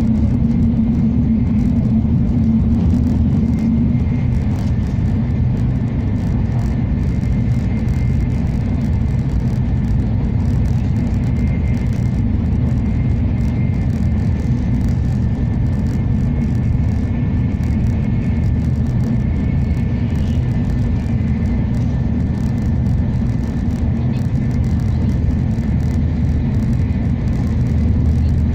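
Cabin noise of a Nozomi Shinkansen bullet train running at speed, heard inside the carriage: a loud, steady low rumble with a faint, steady high whine above it.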